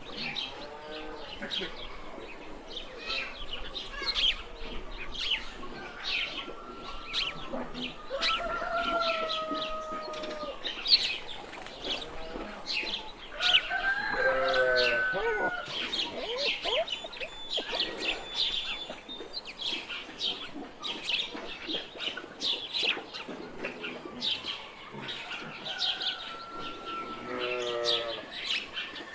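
Small birds chirping continually, with a few longer drawn-out, wavering calls from farm animals such as goats or fowl.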